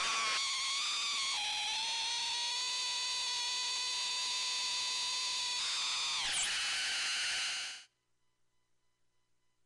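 Homemade CMOS noise synth, four 4093 Schmitt-trigger oscillators mixed through a 4070 XOR gate, giving a harsh, buzzy drone of many clashing tones. Its pitch steps down twice in the first second and a half, holds steady, sweeps about six seconds in, then cuts off suddenly near the end.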